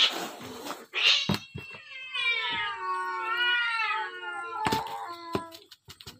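A domestic cat meowing: a short call about a second in, then a long drawn-out meow that wavers up and down in pitch. A brief rustle at the start and two sharp knocks near the end.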